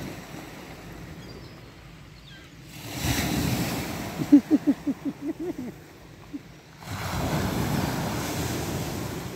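Sea waves breaking and washing up the beach, two surges about three and seven seconds in. A quick run of about seven short pitched sounds, whose source is unclear, sits on the first surge.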